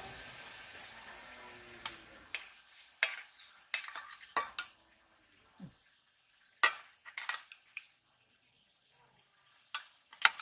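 A long metal spatula clinking and scraping against a stainless steel bowl and plate while fish curry is ladled onto rice: a dozen or so sharp separate clinks with pauses between. A steady hiss fades out over the first two seconds.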